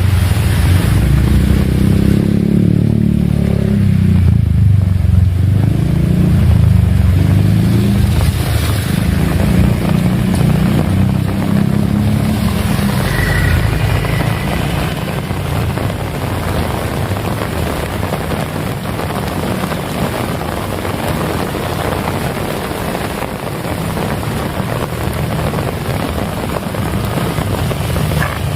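Heavy rain falling steadily. A deep rumble in the first half, with some wavering pitch, fades away about halfway through.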